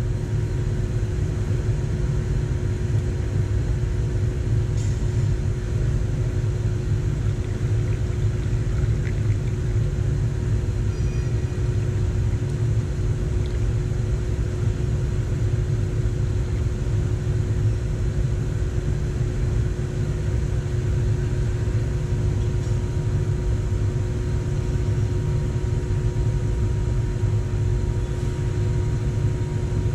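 Steady low rumble with a constant hum, unchanging throughout: background machinery such as a fan or ventilation unit running.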